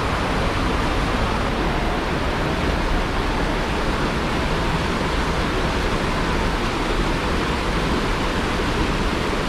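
Large waterfall crashing into its plunge pool: a steady, unbroken rush of falling water.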